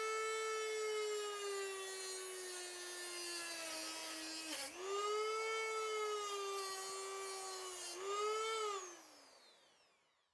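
Dremel rotary tool's motor whining at high speed while its cut-off disc grinds through steel wire. The pitch sags as the disc bites, dips sharply about halfway and recovers, then the motor winds down and stops near the end.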